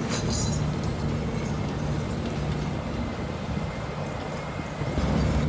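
Steady low rumble and hum of heavy machinery running, with no clear strokes or changes.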